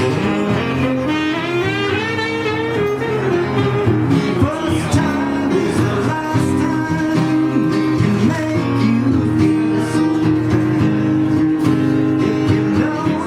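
Live acoustic guitar strummed, with a saxophone playing over it.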